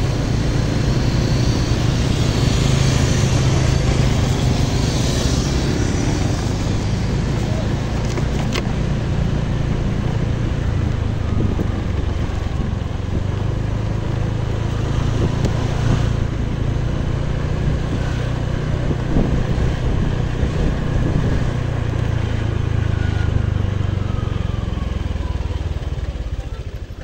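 Motor scooter running steadily while being ridden, with wind and road noise over the engine. The sound drops away near the end as the bike slows to a stop.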